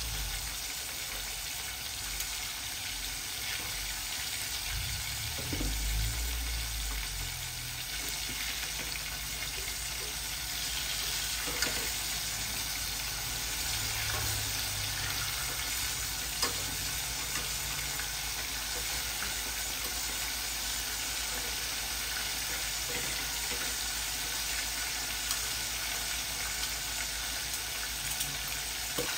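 Chicken pieces frying in hot cooking oil: a steady sizzle with an occasional sharper pop.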